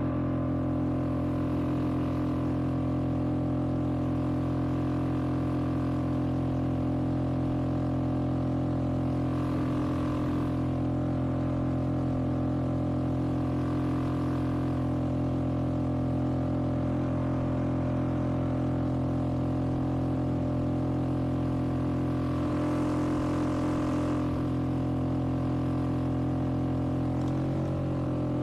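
Boat outboard motor running at a steady speed, an even hum that dips slightly in pitch near the end.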